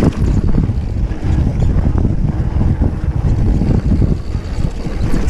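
Mountain bike riding fast over a dirt singletrack: steady wind buffeting the microphone, with tyre rumble and scattered knocks and rattles from the bike over bumps.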